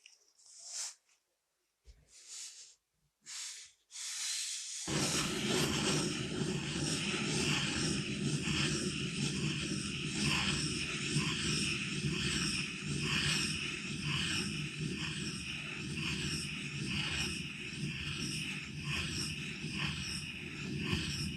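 Pencil on paper: a few separate short strokes with pauses between them, then from about four seconds in continuous rapid scratching with a steady low hum underneath.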